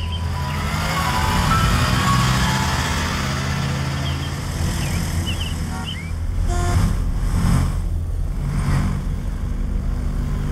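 Road traffic sound effect: a steady hum of passing traffic, with three cars whooshing by in quick succession in the second half.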